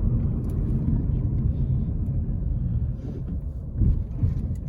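Steady low outdoor rumble, dipping slightly about three seconds in.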